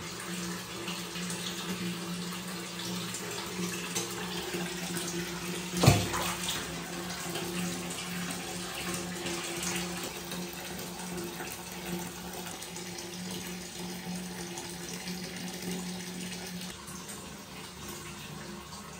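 Steady rush of running water over a low steady hum, with one sharp knock a little under six seconds in.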